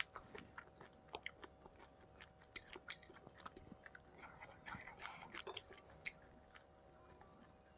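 Close-miked chewing of food: irregular wet mouth clicks, smacks and small crunches, fewer near the end. A faint steady hum runs underneath.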